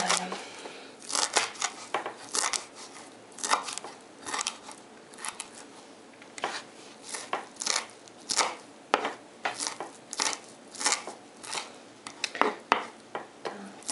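Kitchen knife chopping fresh dill on a wooden cutting board: a run of sharp, uneven knocks, about two a second, broken by short pauses.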